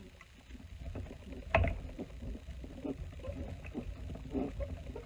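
Hand-cranked die-cutting machine rolling a sandwich of clear cutting plates, a die and cardstock through its rollers. It makes a low rumble with scattered creaks and knocks, and one sharp click about one and a half seconds in.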